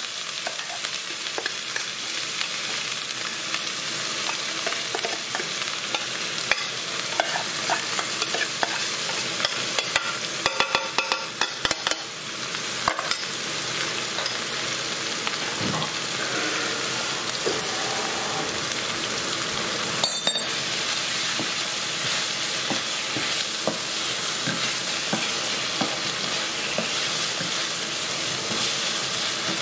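Freshly added chopped onion frying in hot oil in a non-stick frying pan, a steady sizzling hiss. A wooden spoon stirring and scraping the pan gives clicks and scrapes, most of them around ten to twelve seconds in.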